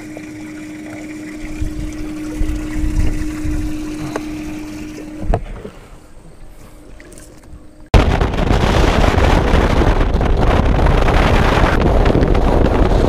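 A steady low hum with a single thump about five seconds in. Then, after an abrupt change at about eight seconds, a Ranger bass boat running fast across open water, with wind rushing over the microphone.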